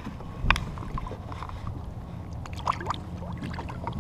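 Water lapping and gurgling around a kayak, with one sharp knock about half a second in. A few short splashes come near three seconds in as a redfish is slipped back into the water over the side.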